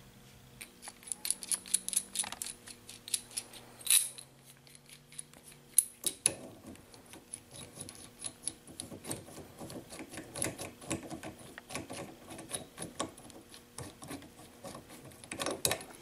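Light metal clicks and clinks as the two halves of a steel bearing separator and its bolts are handled and fitted around the front roller bearing of a GM 3800 V6 balance shaft. The taps come irregularly, with a few louder clinks about four and six seconds in.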